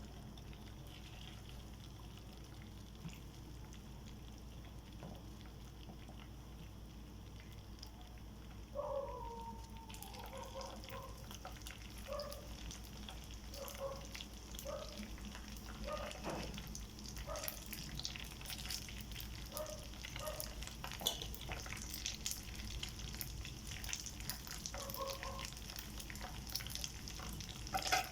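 Rice frying: sizzling comes in about nine to ten seconds in, with sharp clicks and scrapes as it is stirred. Short pitched sounds repeat about once a second alongside.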